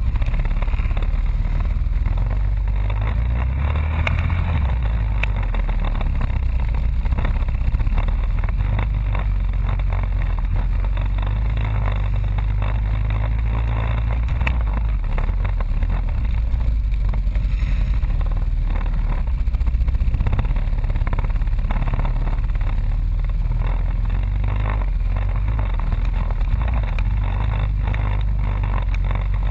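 ATV (quad bike) engine running close up, its revs rising and falling slightly as it crawls along, over frequent knocks and rattles from the machine bouncing over a rough trail.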